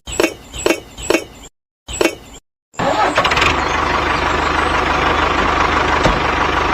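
About six quick plopping pops, then nearly three seconds in a motor starts abruptly and runs steadily with a dense, noisy sound over a low pulse, as a mini tractor's engine would.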